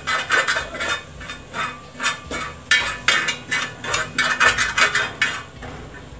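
A metal spoon scraping and clinking against a flat tawa griddle, stirring a butter and spice masala in quick, repeated strokes that die away near the end.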